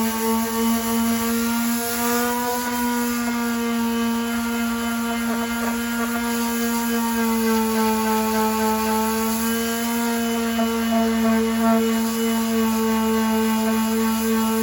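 Power sander running steadily while sanding paint off a car's trunk lid, its pitch sagging slightly at times.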